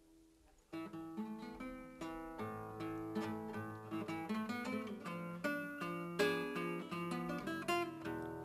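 Classical guitar played solo as an instrumental interlude of a song: after a brief near-silent pause, plucked notes and chords over a moving bass line.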